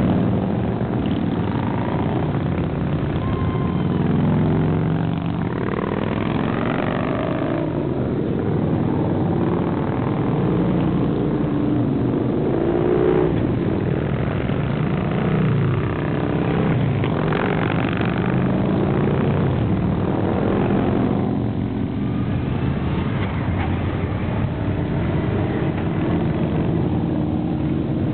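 A procession of custom V-twin motorcycles riding past one after another, their overlapping engine notes rising and falling in pitch as each bike goes by.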